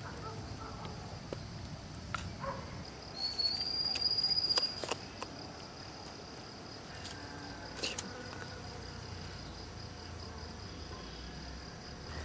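Insects in the forest chirring steadily at a high pitch, with one louder call that rises slightly and holds from about three to five seconds in. A few sharp clicks are heard over it.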